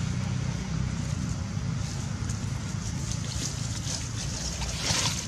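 Steady low rumble of wind on the microphone, with dry leaves crackling and rustling under the macaques. The crackling builds from about two seconds in to a brief louder rustle near the end.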